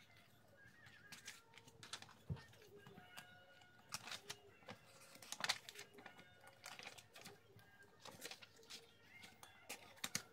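Pages of a plain Moleskine sketchbook being turned and handled: quiet paper rustles and soft taps, the loudest a little past halfway.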